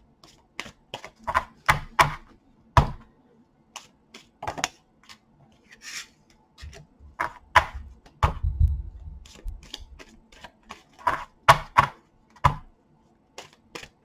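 Tarot cards being handled and laid down on a wooden desk: an irregular run of sharp taps and clicks, with a low rubbing noise for a few seconds around the middle.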